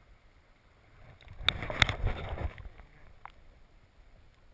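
River current heard through a submerged camera's housing: a dull, muffled wash of water, with a louder rush and a few sharp clicks and knocks about one and a half to two and a half seconds in, and one more click a little after three seconds.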